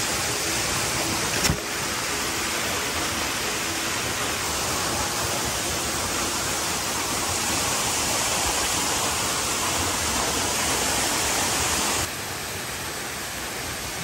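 Steady rush of water from a waterfall, with one sharp knock about a second and a half in. About twelve seconds in the rush cuts abruptly to a softer, duller level.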